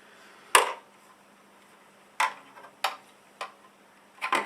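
Sharp clicks and knocks from a graphics-card power cable connector being handled and fitted to the card's socket. There are five separate clicks, and the first, about half a second in, is the loudest.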